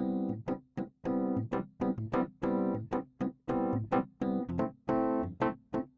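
Sampled Fender Rhodes Mark I electric piano (the free Electric Keys Kontakt instrument) playing repeated chords in a steady rhythm, each one dying away quickly before the next.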